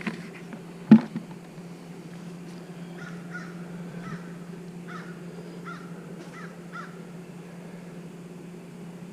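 A crow cawing repeatedly, a run of short harsh calls, over a steady low hum of honeybees at the hives. A single sharp knock sounds about a second in.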